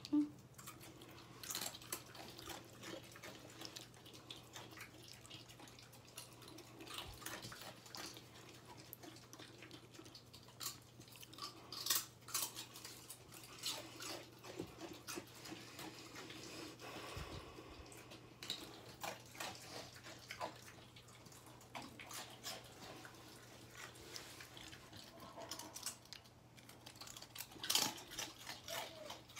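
A dog chewing potato chips, a run of irregular crisp crunches and clicks, over a faint steady low hum.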